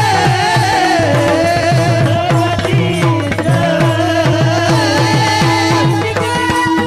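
Marathi kirtan devotional music: a singer's voice gliding through an ornamented melody over fast tabla-style hand-drum strokes and a steady harmonium drone. The voice drops out near the end, leaving the drone and drumming.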